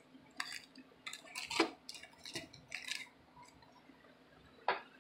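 Small items and packaging being handled and set down: a scattered series of short clicks and light rustles, with one sharper click near the end.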